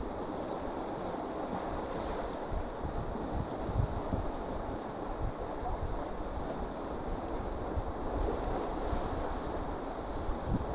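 Sea waves washing and breaking against a rocky shore: a steady rushing with a constant high hiss over it and a few soft low thumps.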